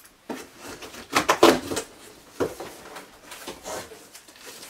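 Cardboard shipping box being unpacked: irregular scraping and rustling of cardboard flaps and packing being handled, loudest from about one to two seconds in.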